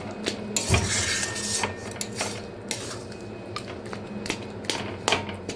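Metal spatula scraping and clinking against a metal kadai as thick, sticky jujube pickle is stirred, in irregular knocks with a longer scrape about a second in.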